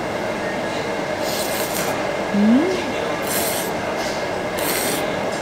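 Cold naengmyeon noodles slurped three times in quick pulls, with a short rising hum between the first two slurps.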